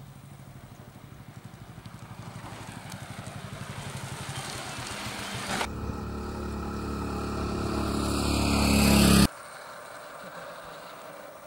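Motorcycle engine running as the bike rides along, growing steadily louder for about nine seconds, then dropping suddenly to a fainter, more distant engine sound.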